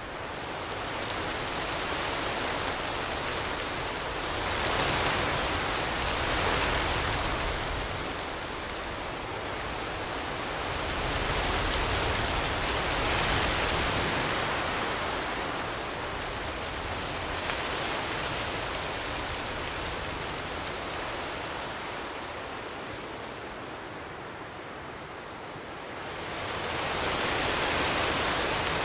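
Wind blowing in slow gusts: a steady rushing that swells and eases every several seconds.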